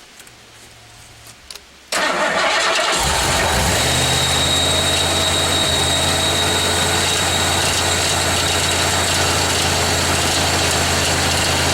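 1987 Ford Bronco's freshly overhauled engine starting about two seconds in and settling into a steady idle, with a high steady whine over it. The crew blame the awful sound on a drive belt left untightened.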